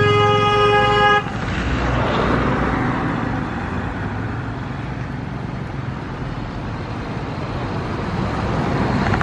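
A vehicle horn sounds once, held for about a second, over road traffic. Engine and tyre noise follow, growing louder near the end as a vehicle passes close.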